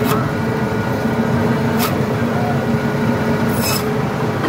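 Electric band saw running with a steady hum while its blade cuts through a large grass carp, with a few short, high rasps as the blade bites through the fish.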